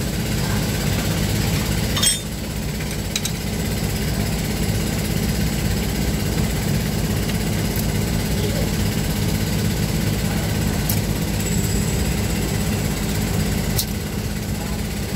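An engine running steadily nearby with a low, even rumble, with a few light metallic clinks of wrenches on the valve gear, the sharpest about two seconds in.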